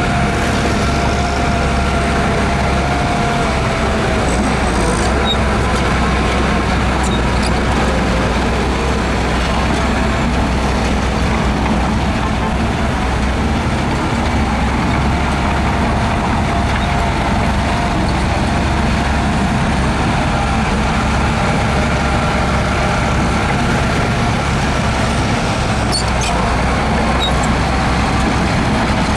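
Heavy diesel earthmoving machinery running steadily under load, with a deep, even rumble. A few faint, brief high clicks come through around five to seven seconds in and again near the end.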